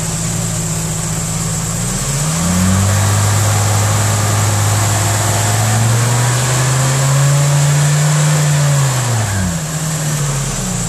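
Volkswagen G60 supercharged 1.8-litre four-cylinder engine revved up from idle about two seconds in, held steady at about 2500 rpm for an ignition timing check, then dropped back to idle near the end.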